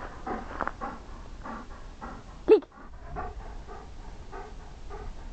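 Bernese Mountain Dog panting rapidly, about three or four breaths a second, with one short, sharp yelp about halfway through that is the loudest sound.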